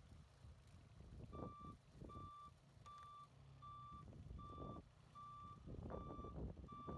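Backup alarm of a forklift-style nursery trike beeping in a steady rhythm, about one short beep every three-quarters of a second, starting about a second in, over the low running of its engine as the machine reverses.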